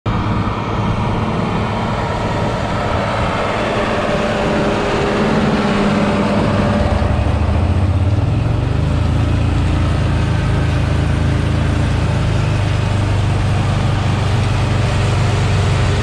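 John Deere tractor's diesel engine running steadily under load as it pulls a disc mower-conditioner through hay. The low engine note grows stronger about seven seconds in as the tractor comes closer.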